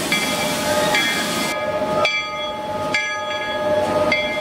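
Steam whistle of an 1881 Baldwin steam locomotive sounding several tones at once, in a run of blasts about a second apart. Steady steam hiss runs under it until it cuts off about a second and a half in.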